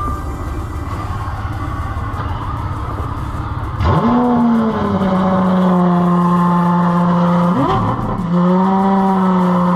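Car engine running with a steady rumble, then revving up sharply about four seconds in and holding a steady high note; near the end it sweeps up once more and settles back to the held note.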